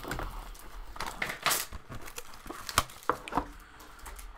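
Trading-card box being opened by hand: crinkling and scraping of the cardboard packaging, with a short swish about a second and a half in and a few light clicks and taps.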